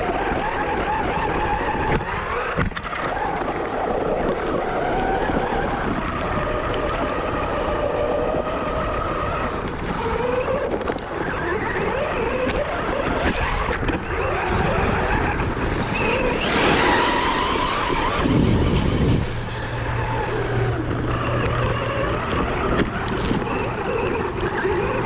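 ARRMA Talion 6S RC car's brushless motor whining up and down in pitch as it is driven hard on rough ground, with tyre and ground noise underneath. About two-thirds of the way through comes one louder rising surge, after which a steady low hum sets in.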